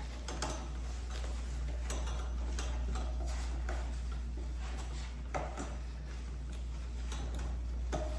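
Scattered light clicks and knocks of animatronic parts being handled and fitted together, over a steady low hum.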